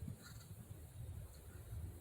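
Faint woodpecker call just after the start, over a low, uneven rumble of wind on the microphone.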